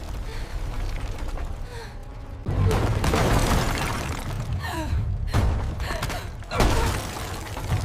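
Sound effects of an old mill's structure giving way: a steady low rumble with creaking and mechanical clatter, and two sudden loud crashes about two and a half and six and a half seconds in.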